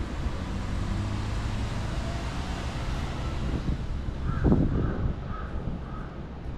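A crow cawing four short times in quick succession, over a steady low outdoor rumble, with a low thump at the first caw.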